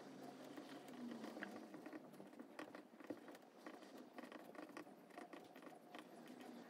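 Faint scratching of a pen writing on paper: a quick, irregular run of short strokes.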